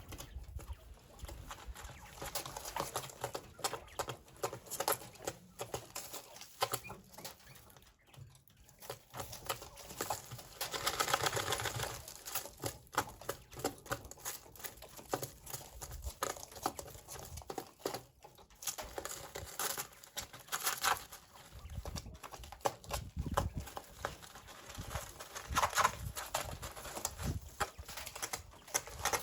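Coturnix quail pecking and moving about in their pen: a steady run of small, irregular taps, with a few louder bursts and soft bird sounds.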